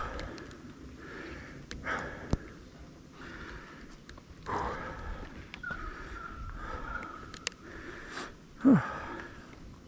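A mountain biker breathing hard while resting after a tiring ride, with slow, noisy breaths a couple of seconds apart. Near the end comes a short, loud grunt that falls in pitch.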